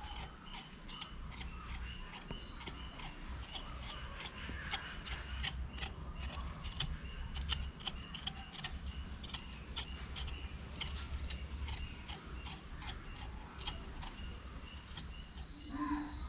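A raw potato being peeled by hand with a kitchen knife: a quick, irregular run of short scraping cuts as the blade shaves off the skin.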